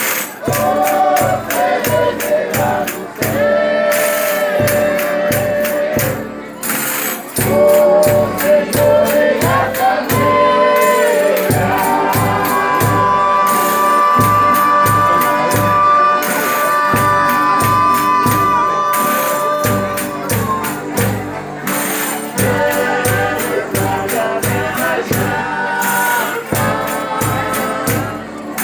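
Folia de Reis singers performing a devotional song of thanks in several voices, accompanied by guitar, tambourine and a steady drum beat. Around the middle, one high voice holds a long note for several seconds.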